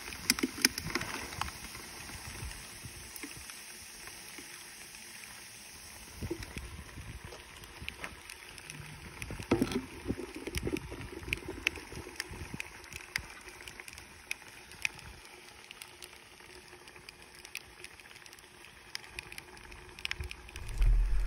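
Liquid nitrogen boiling off around a plastic ice-cube tray as it freezes water, coolant and engine oil, with many scattered small clicks and crackles over a low, uneven hiss.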